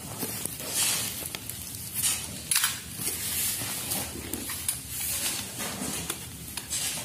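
Cardboard shipping box being cut and torn open by hand: a blade scraping through packing tape, and cardboard flaps rustling and ripping in a run of short, irregular scrapes and tears.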